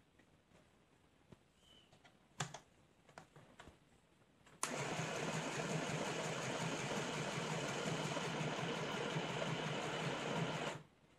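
CMD 12-stitch mini household sewing machine running steadily as it stitches fabric; it starts suddenly about four and a half seconds in and stops near the end. Before it starts, there are a few light clicks.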